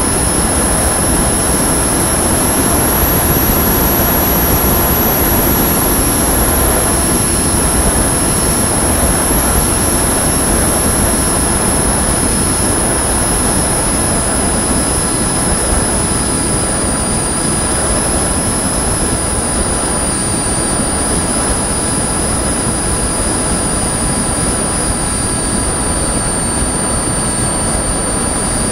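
Radio-controlled model aircraft's motor and propeller, heard from its onboard camera: a steady high whine over loud wind rush. The whine drops slightly in pitch in the second half.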